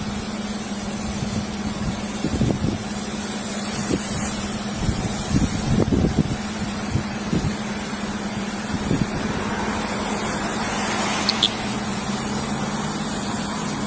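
Steady roadside background: a low, even hum of an idling vehicle under a constant hiss, with a few soft thumps.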